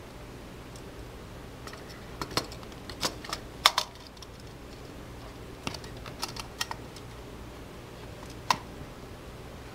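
Clicks and knocks of a dome camera's mounting plate being fitted onto the camera body and the assembly being handled: a cluster of clicks between about two and four seconds in, another around six seconds, and a single sharper click near the end, over a steady low hum.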